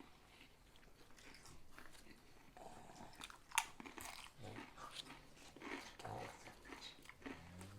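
Close-up mouth sounds of someone eating a sub sandwich: bites with a crunch and wet chewing, coming as scattered short smacks and clicks.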